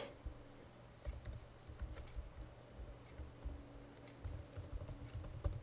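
Faint computer keyboard typing: scattered key clicks in short runs.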